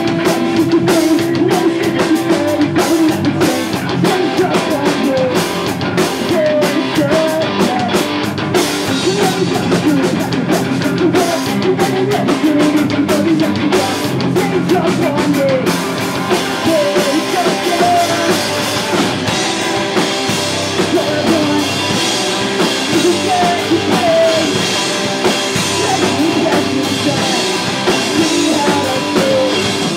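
Live pop-punk rock band playing: drum kit with cymbals, electric guitars and bass, at a steady loud level.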